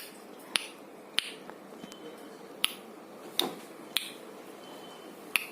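A parrot making sharp, irregular clicking sounds, about seven clicks with gaps of half a second to a second or more, and a faint brief high whistle twice in between.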